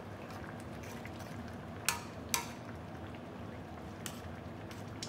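Two sharp clinks of a cooking utensil against a pot, about half a second apart, with a fainter one later, over steady low background noise.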